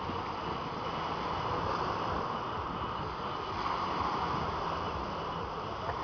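Small sea waves breaking and washing over a pebble beach: a steady rushing that swells twice.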